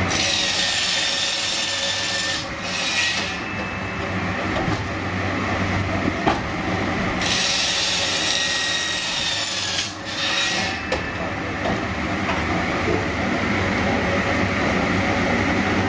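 Log segment saw cutting through a raw log twice, each cut a loud hissing rasp lasting about three seconds, over the steady hum of the machine's motor and conveyor.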